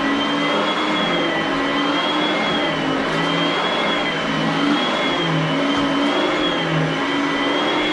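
Oreck upright vacuum cleaner running steadily: a loud motor rush with a high whine that wavers slightly up and down in pitch.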